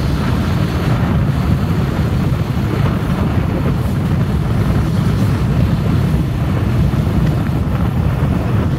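Steady low rumble of a moving vehicle on the road, with wind buffeting the microphone.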